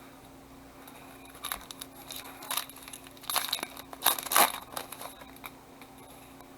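Wrapper of a trading card pack crinkling and tearing in a string of short crackles, loudest a little after the middle. A faint steady hum sits underneath.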